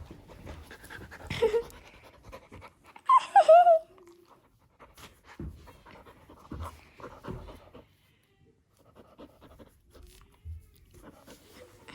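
A dog panting after a game of fetch, with scattered light knocks and one short, louder pitched sound about three seconds in.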